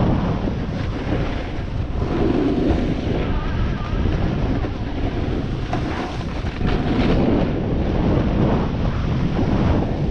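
Wind buffeting the microphone of a body-worn action camera while descending a groomed snow run at speed. Beneath it is the hiss and scrape of the runner's edges on packed snow, rising and falling every few seconds with the turns.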